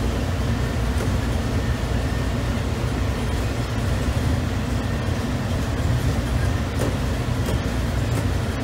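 Steady low rumble of the Skyway automated people-mover tram running along its elevated guideway, heard from inside the car.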